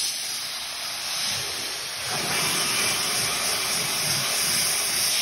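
Garden hose spray nozzle jetting water at high pressure onto a plastic truck interior panel, a steady hiss that grows louder about two seconds in, blasting off loose flakes of texture coating.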